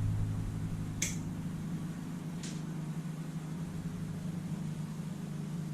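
Small plastic lever connectors clicking shut on wires, twice about a second and a half apart, over a steady low hum.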